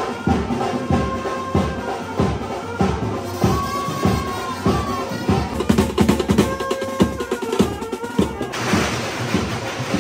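Wedding procession band playing: a driving, regular drum beat of bass drum and snare under a melody line.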